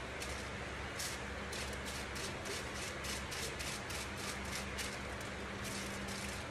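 Short, irregular crinkles and scrapes of a tint brush and foil as hair lightener is painted onto a foil highlight, a few a second, over a steady low hum.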